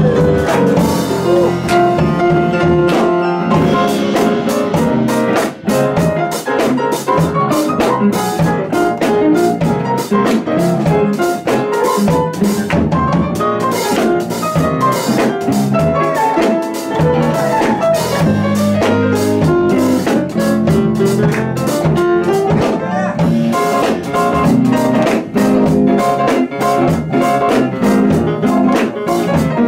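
Live jazz played on a grand piano with a drum kit, cymbals sounding all through.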